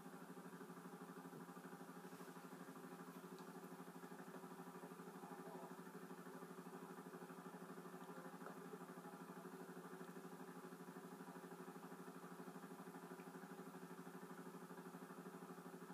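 Faint, steady hum with a fast flutter, like a small motor running.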